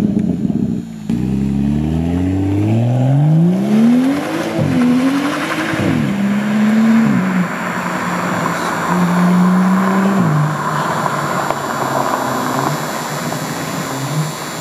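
2015 BMW M235i's turbocharged 3.0-litre straight-six running with the exhaust open from the downpipe back, pulling away hard and revving up in several rising runs, then holding steadier and fading as the car drives off. The open exhaust makes it sound really loud.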